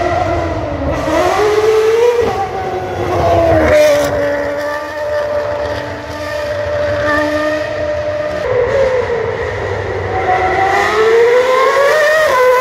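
Red Bull RB8 Formula One car's 2.4-litre V8 engine at high revs, its pitch climbing and falling through gear changes. It holds a steady high note for several seconds in the middle, drops sharply, then climbs again near the end.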